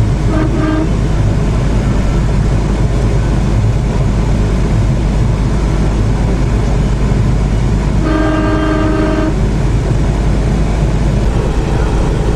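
Steady engine and road rumble heard from inside a moving vehicle. A short horn toot comes just after the start, and a longer horn blast of just over a second comes about two-thirds of the way through.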